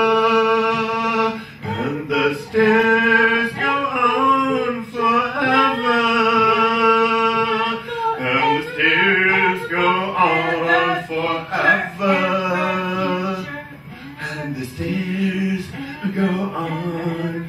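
A man and a woman singing together in long held notes that bend and slide in pitch, a chanted vocal duet without clear words.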